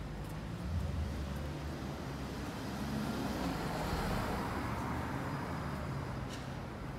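A car passing close on the street, its tyre hiss swelling to a peak about four seconds in and then fading as it moves away, over a steady low rumble of traffic.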